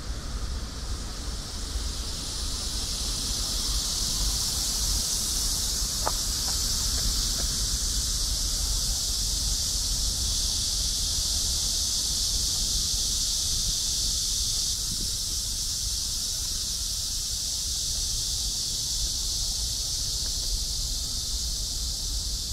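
A steady, high-pitched insect chorus that swells in over the first couple of seconds and eases slightly about two-thirds of the way through, over a low rumble.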